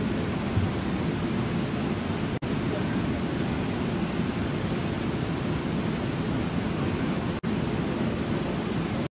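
A low, steady rush of water pouring over Brooks Falls. The sound cuts out for an instant twice, about two and a half and seven and a half seconds in.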